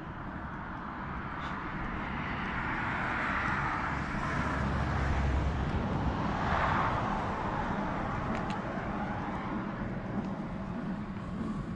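Scania truck's diesel engine running as the truck pulls slowly past at close range. The rumble grows louder as it approaches and is loudest about halfway through as it passes by.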